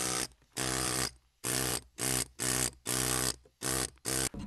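Handheld power grinder biting into expanded obsidian stone in short bursts, about eight in a row. Each burst lasts under a second and starts and stops sharply, with a steady motor whine under the grinding hiss.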